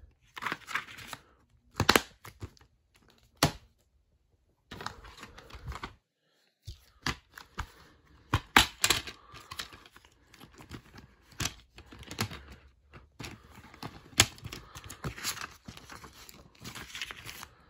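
DVD cases and their paper inserts being handled: a string of sharp plastic clicks and snaps as a case is turned over and opened, with paper inserts rustling in between.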